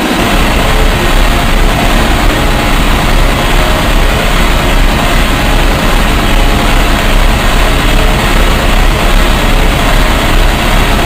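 Loud, steady, harsh noise at all pitches over a heavy low rumble, engine-like but with no clear pitch or rhythm.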